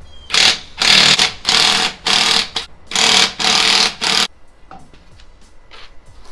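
Cordless impact wrench hammering lug nuts off a pickup's rear wheel, in six short bursts about half a second each, one after another over roughly four seconds.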